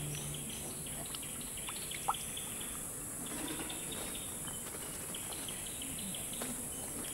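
Forest ambience: a steady high-pitched insect buzz with scattered short bird chirps, and one brief, slightly louder note about two seconds in.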